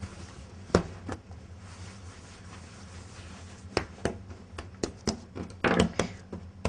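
Hands pressing, folding and slapping a ball of bread dough on a wooden worktop: scattered soft thumps and taps, bunched together near the end, over a faint steady low hum.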